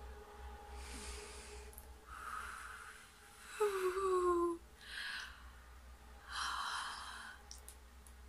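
A woman's breathy exhales and sighs, several in a row, with one short voiced sigh that falls in pitch about three and a half seconds in: an overwhelmed, excited fan reaction.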